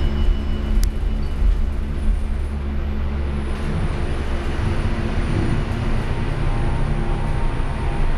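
Midstate hydraulic elevator setting off upward: a steady low rumble of the car and its hydraulic drive, with a single click about a second in. A faint high whine comes in about two seconds in, and the rumble shifts about halfway through.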